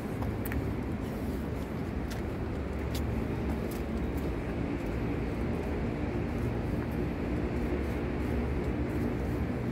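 Steady low rumbling background noise with no clear pitch, with a few faint clicks over it.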